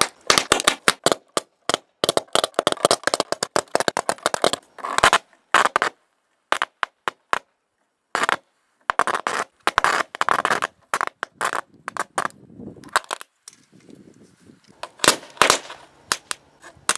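Heavy DC arcing from a copper rod fed by four truck batteries in series, touched to a computer motherboard: repeated bursts of sharp crackling and snapping as the high current burns through the board's copper ground plane. The bursts stop and start several times with short gaps.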